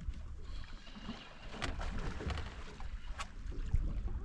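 Low rumble of a fishing boat sitting on the water, with a few sharp knocks and clicks on board.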